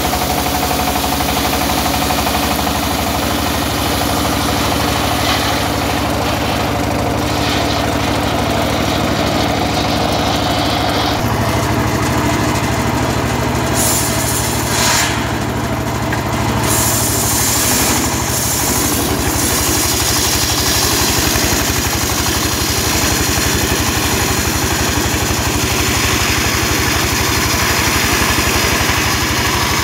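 Horizontal single-cylinder diesel engine running steadily, driving a homemade circular sawmill as it rips timber into planks. The engine note changes abruptly about eleven seconds in.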